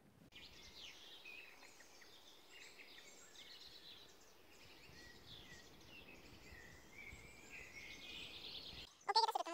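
Songbirds singing: a dense chorus of short high chirps and warbles over a faint steady hiss, cutting off suddenly near the end.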